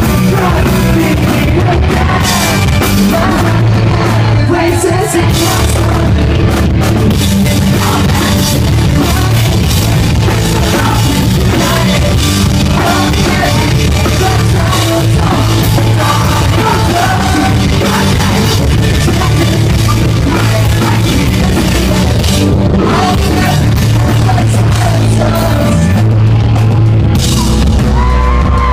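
Live pop-punk band playing a song loudly: sung and partly shouted lead vocals over a full rock band with drum kit.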